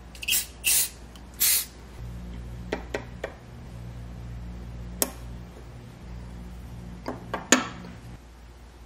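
Thin steel saw-blade blank and nickel silver handle plate handled on a wooden workbench: three short scrapes in the first two seconds, then a scattering of light metallic clicks and taps as the pieces are set down and lined up.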